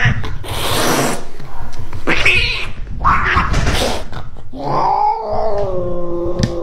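A terrified domestic cat, restrained for a vet exam, hissing several times and then letting out a long, wavering yowl that begins near the end.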